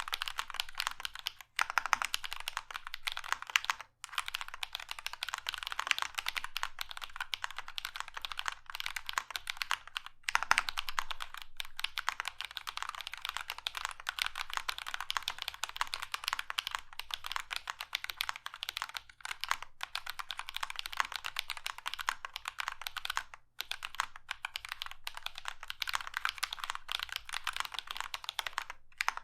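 Fast continuous typing on a mechanical keyboard with lubed Drop Holy Panda tactile switches and PBT keycaps in a frosted acrylic case, dampened with plate and bottom foam; a dense run of keystroke clacks with a few brief pauses.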